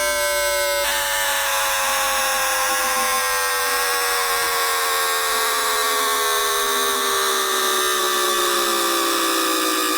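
Times Electric tPower-TN28 VVVF traction inverter and motors of a Shenzhen Metro Line 14 train, picked up by an induction coil: several whining tones that glide slowly and steadily downward. The tone pattern changes abruptly just under a second in. The falling pitch is the sign of the train slowing under electric braking.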